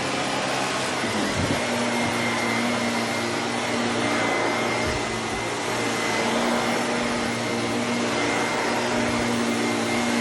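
Vacuum cleaner running steadily with a constant whine, with a couple of brief low bumps about a second and a half and five seconds in.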